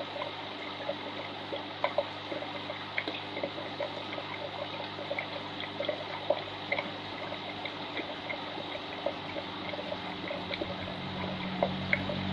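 Aquarium water trickling and splashing steadily, with many small drips and plops.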